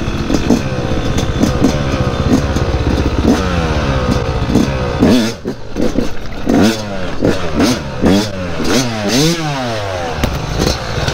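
Yamaha dirt bike engine running close under the rider. From about five seconds in it is revved in a string of quick throttle blips, each rising and falling in pitch, as the bike is worked onto concrete steps.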